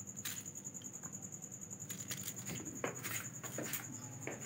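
Small knife cutting peaches held in the hand: faint scattered scrapes and clicks as the blade cuts through the fruit and pieces drop onto a china plate. A steady high thin tone runs underneath.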